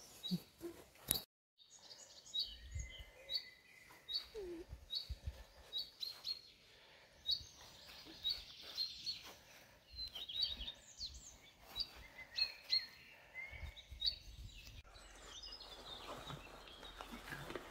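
Birds chirping in the background: a short high chirp repeated roughly every second, mixed with other bird calls, over occasional low rumbles.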